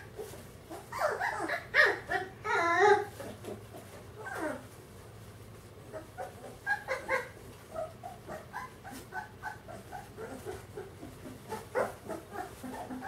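Three-week-old Bernese mountain dog puppies crying: a run of loud wavering cries in the first three seconds, a falling cry at about four seconds, then many short, softer cries.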